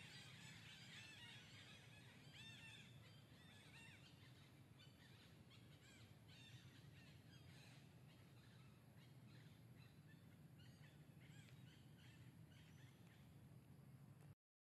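Near silence with faint, high-pitched animal chirps: many short arching calls repeating throughout, fading after the first couple of seconds. The sound cuts out abruptly near the end.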